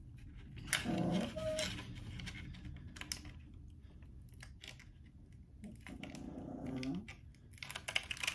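A dog vocalizing twice in drawn-out sounds that slide in pitch, about a second in and again near six seconds, with light clicking and tapping in between.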